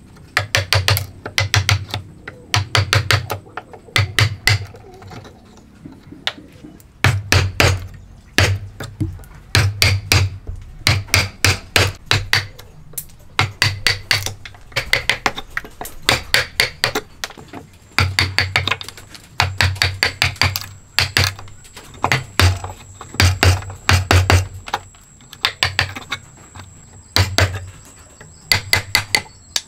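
Mallet striking a wood chisel as it chops out a joint in a wooden table leg: quick runs of sharp strikes, several a second, in groups with short pauses between them.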